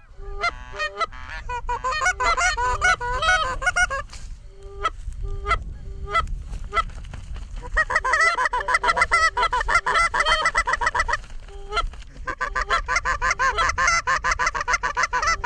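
Goose honks and clucks, from calling geese or hunters' goose calls: separate honks at first, then two long runs of rapid, overlapping clucks and honks.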